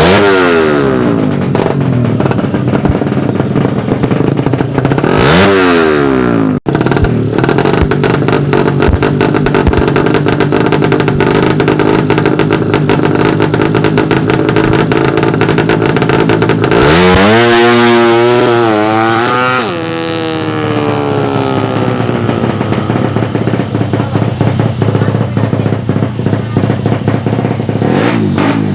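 Suzuki Satria FU single-cylinder 150 cc-class drag bike engines running loud at high revs. Near the start and again a few seconds in, the pitch swings down and up. About two-thirds of the way through the pitch climbs in steps, then falls away slowly.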